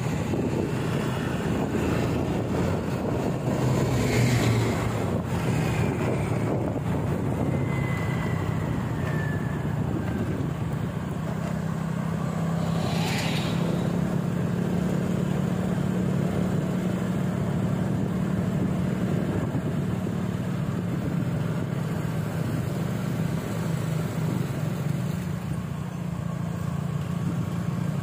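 A motor vehicle's engine running steadily, with a continuous low hum and road noise. A single short, sharp sound cuts in about thirteen seconds in.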